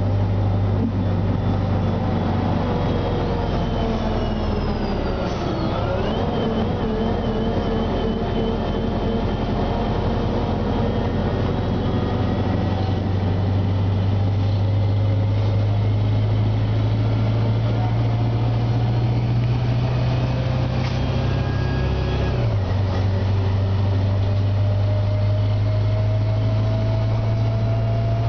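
Orion VII transit bus with a Detroit Diesel Series 50G natural-gas engine and Voith DIWA 864.3 automatic transmission, heard from inside the passenger cabin while under way: a steady low drone with whining tones above it. The tones dip and recover about five seconds in, and the drone steps down in pitch about 22 seconds in, as at a gear change, then slowly rises again.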